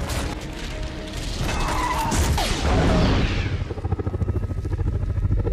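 Action-film sound mix: orchestral score under crashing and rumbling destruction effects. A loud crash with a falling sweep comes about two seconds in, followed by a fast-fluttering low rumble.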